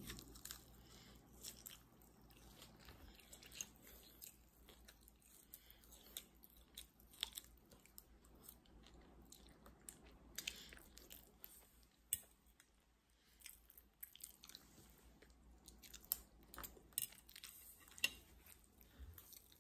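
A person chewing and biting food close to the microphone: faint, scattered wet mouth clicks and smacks, with a few sharper ones now and then.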